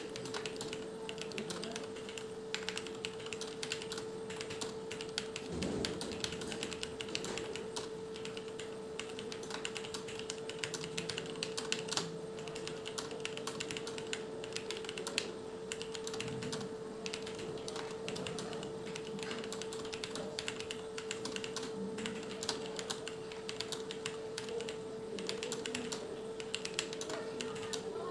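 Fast touch-typing on a TVS computer keyboard: an unbroken, rapid patter of keystrokes at about 55 words a minute, with a steady hum underneath.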